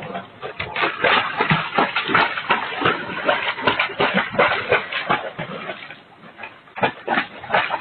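An animal making a rapid, harsh run of noises, with a short pause about six seconds in before they start again, heard through a doorbell camera's microphone.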